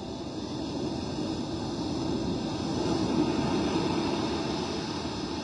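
Steady rushing of gusty wind and surf, muffled as heard through a camera's plastic underwater housing. It swells a little around the middle and then eases.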